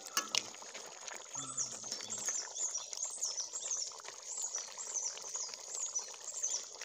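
A bird repeating a short, high, falling chirp about twice a second, over a steady wash of running water. Near the start a steel ladle clinks twice against the cooking pot as thick crab gravy is spooned out.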